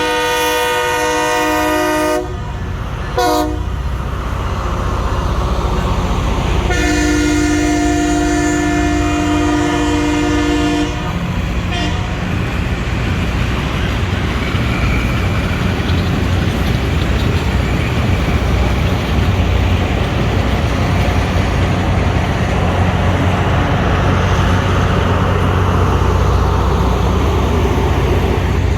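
Locomotive chord air horn blowing: a blast ending about 2 s in, a short toot, a long blast from about 7 to 11 s and another short toot. Then a steady low rumble of the diesel locomotives and train going by.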